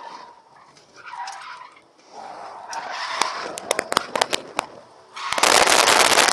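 Inside a drifting car, heard from the cabin: low road and tyre noise, a quick run of sharp clicks and knocks about halfway through, then about a second of loud rushing noise near the end that cuts off suddenly.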